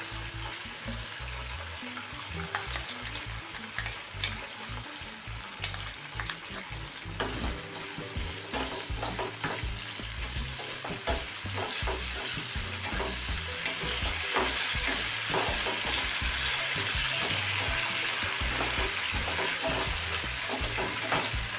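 Onion and capsicum sizzling on a high flame in a pan of hot oil with sauces just added, stirred with a spatula that scrapes and taps against the pan. The sizzle grows louder about two-thirds of the way through.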